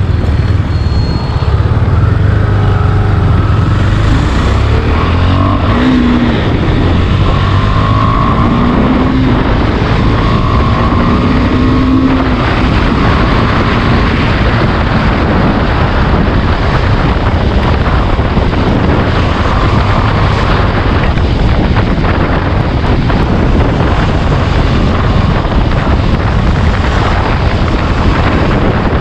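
KTM Duke 390's single-cylinder engine accelerating hard through the gears, its note rising and breaking off at each upshift in the first half. After that the engine is buried under heavy wind rush on the helmet-side microphone at speed.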